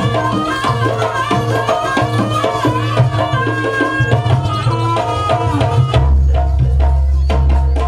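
Jaranan ensemble music: a wavering melody line over hand drums (kendang) and a deep, steady bass. About six seconds in the melody drops back and the drum strokes and heavy bass come forward.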